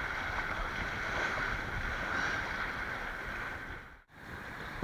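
Steady rush of flowing river water. It drops out for an instant near the end and comes back slightly quieter.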